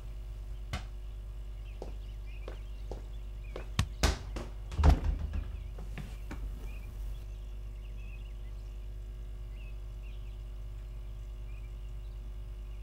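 A cluster of dull thuds and knocks about four to five seconds in, the loudest near five seconds, over a steady low hum and a few faint scattered clicks.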